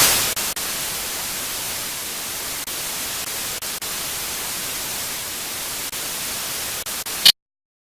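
Steady static hiss like white noise, with a few brief dropouts, starting suddenly and cutting off abruptly near the end.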